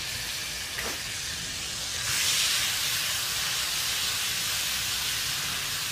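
Chopped onions sizzling in hot oil in a pan, stirred with a spoon; the sizzle gets louder about two seconds in and holds steady.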